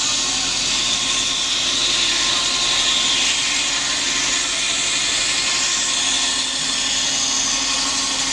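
Large belt-driven circular saw on a rack sawbench ripping lengthwise through a timber baulk: a steady, loud hissing whine of the blade cutting the wood, over a low hum from the spinning drive.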